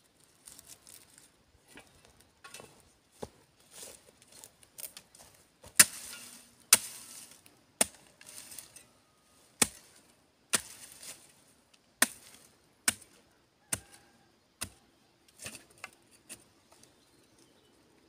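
A hoe's metal blade chopping into hard, dry earth: about a dozen sharp strikes, roughly one a second and irregular, the loudest near the middle, with faint scraping between them.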